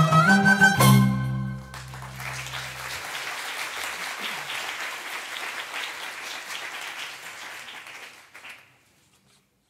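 A small Arabic music ensemble of oud, qanun, nay, violin, cello and percussion plays its closing notes, ending about a second in with a low note that rings on briefly. Audience applause follows and fades out near the end.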